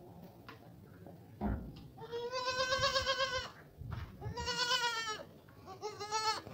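Young goat kid bleating three times: high, wavering calls, the first the longest and the last cut short, a kid calling for its missing mother. A short knock comes just before the first call.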